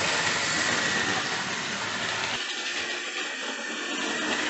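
Hornby OO-gauge LMS Stanier Class 5 4-6-0 model locomotive running quickly around the track: a steady whir of its electric motor and wheels on the rails, with a thin high whine. The low rumble drops away about two and a half seconds in.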